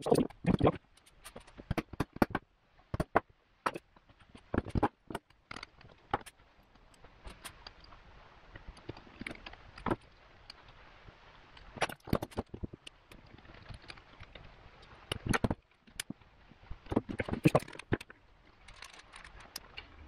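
Irregular metallic clinks and knocks of hand tools and shifter parts being handled and set down on a workbench while a Subaru STI shifter is assembled.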